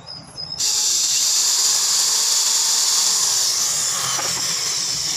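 Electric drill with a twist bit boring a hole into a wooden strip: it starts abruptly about half a second in and runs as a steady, high, hissing whir.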